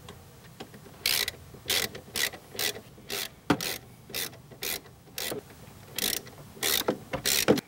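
Socket ratchet wrench snugging up the motorcycle trunk's mounting bolts: short bursts of ratchet clicking, about two a second, starting about a second in.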